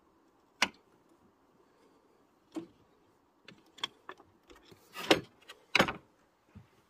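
Scattered sharp clicks and knocks of tools and parts being handled in a car's engine bay. The two loudest knocks come about five and six seconds in.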